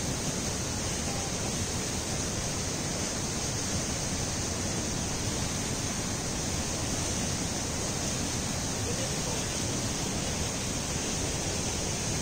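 Stream rapids below Kumu Falls, whitewater rushing over and around boulders in a steady, unbroken rush.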